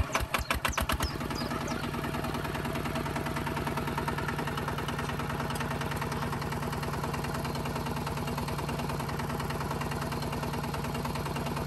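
Tractor engine starting with a quick run of chugs in the first second, then running at a steady idle.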